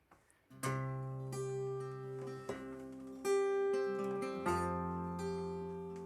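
Acoustic guitar starting the song's intro about half a second in, with picked notes ringing over low bass notes.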